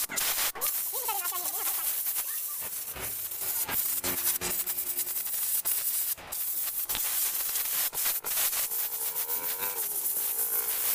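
Compressed-air blow gun hissing as it blasts air through the fins of an aluminium car radiator to dry the water out of it. The hiss is steady with a few brief breaks.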